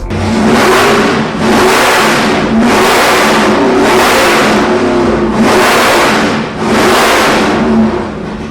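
Naturally aspirated 502 cubic-inch GM big-block V8 crate engine, fitted with a hydraulic roller camshaft and a Nelson alien intake, revving loudly in several surges with short dips between.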